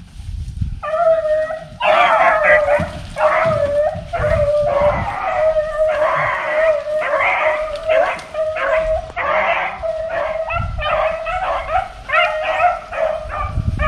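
Rabbit-hunting beagles barking and baying in quick, overlapping repeated notes, nearly without a break from about a second in: the pack giving chase on a cottontail's trail.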